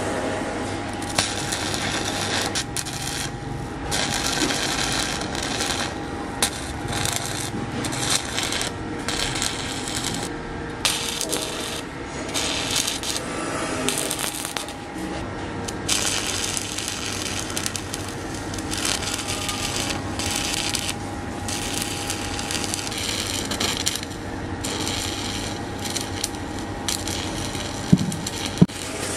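Arc welding on steel angle iron: a crackling sizzle in runs of a few seconds, stopping and starting again as the arc is struck and broken, over a steady low hum. Two sharp knocks near the end.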